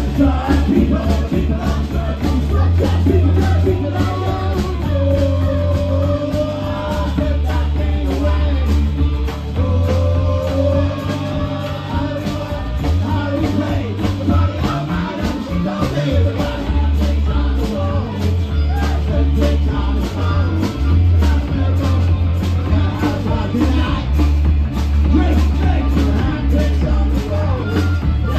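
Live band music: a woman singing lead over strummed acoustic guitar, a heavy bass line and a steady drum beat.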